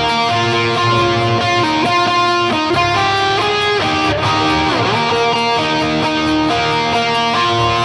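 Background music led by electric guitar, with notes that change about every half second and a brief falling sweep about five seconds in.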